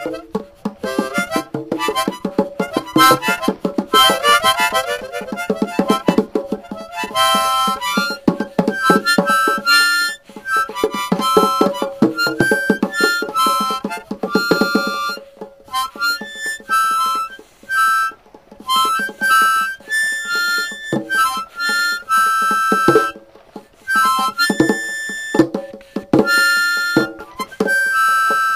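Instrumental music led by a harmonica. It plays short held high notes over dense, rhythmic accompaniment for the first several seconds, then carries on in sparser phrases with gaps.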